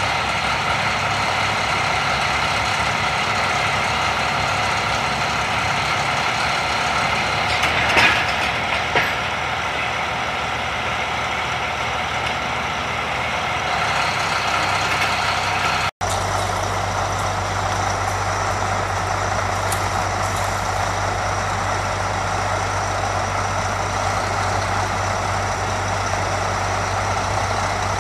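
Diesel engines of heavy crawler equipment, sidebooms and a dozer, running steadily, with two short sharp knocks about eight seconds in. After an abrupt cut just past halfway, a deeper steady hum joins the engine sound.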